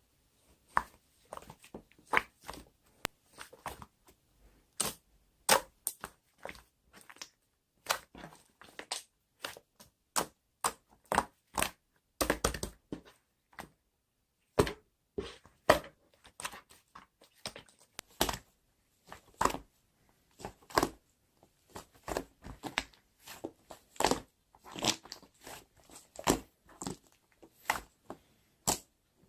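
Two-layer slime being mixed and squeezed by hand, giving irregular sharp clicks and pops, a few every second.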